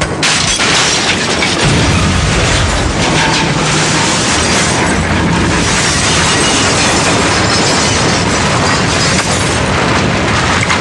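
Cartoon sound effect of a rocket engine: a loud, steady rushing blast that starts abruptly and keeps going, as a rocket bursts in through a wall.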